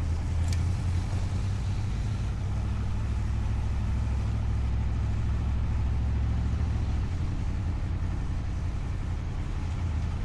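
Steady low engine and road drone inside a moving vehicle, with one short click about half a second in. The deepest part of the drone eases slightly about seven seconds in.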